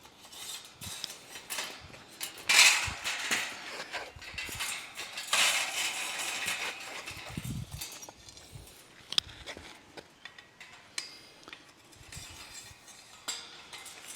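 Metal wire fence panels rattling and clinking as they are handled and hooked together, with scattered clicks and two louder rattles, one about two and a half seconds in and a longer one about five seconds in.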